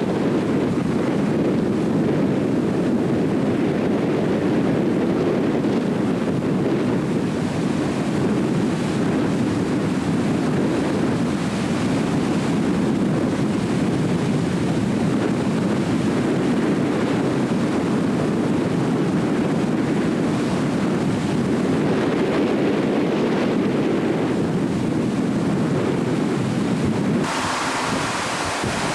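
Steady rush of fast tidal water, with wind buffeting the microphone. The sound shifts abruptly near the end, turning brighter and hissier.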